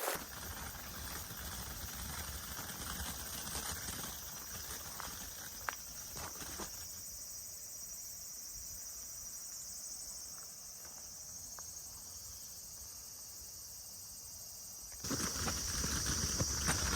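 Insects chirring in a steady, high-pitched chorus, with a few faint clicks. Near the end a louder low rumble joins in.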